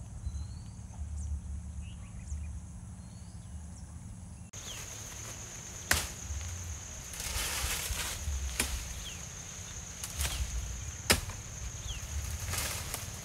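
Machete chopping at branches and saplings: four sharp chops a second or two apart in the second half, with swishes of leaves and twigs between them, over a steady high drone.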